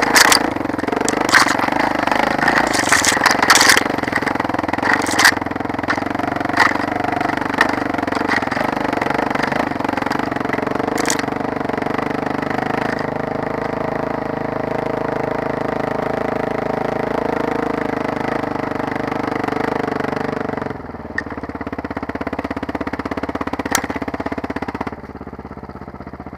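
Dirt bike engine running steadily on a rough forest trail, with sharp knocks and brushing from branches striking the bike during the first several seconds. About twenty seconds in, the engine drops back to a quieter idle as the bike comes to a stop.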